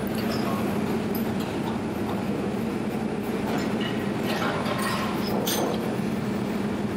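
Steady low hum of background machinery, with a few faint light clicks about halfway through.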